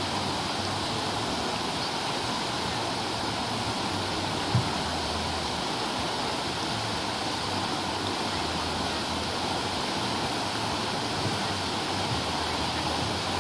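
Whitewater rushing steadily over a low weir on a river slalom course. A single brief low thump comes about four and a half seconds in.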